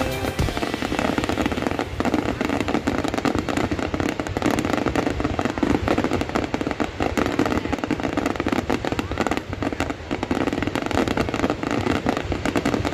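Fireworks display: a dense, unbroken volley of bangs and crackling bursts that keeps up without a pause.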